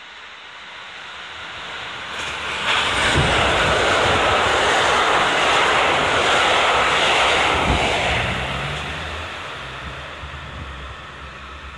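KiHa 85 series diesel limited express (Hida) passing through at speed. Engine and wheel noise builds, comes on suddenly at full strength about three seconds in and holds for about five seconds, then fades as the train goes by, with a steady engine hum in the tail.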